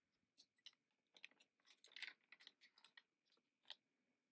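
Small scissors snipping through a plastic toy pouch, with faint, scattered crinkling of the plastic as it is handled.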